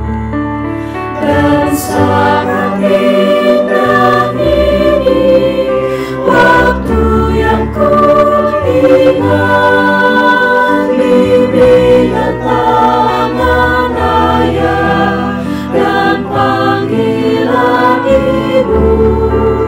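Mixed choir of men's and women's voices singing a Christian song in harmony, as a virtual choir mixed from separately recorded singers.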